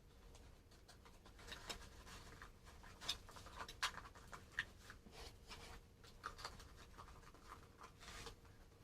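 Faint scratching with scattered light clicks and ticks, as of hands working on cardboard.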